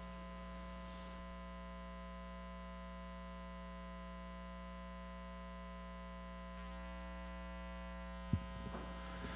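Steady electrical mains hum from the sound system, with a single click near the end.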